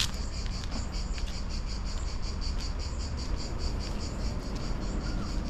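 Insects chirping in a rapid, even pulse, over a steady low rumble.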